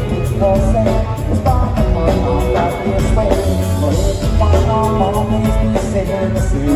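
Live band playing loud, amplified rock music with a singer, over a strong, steady bass.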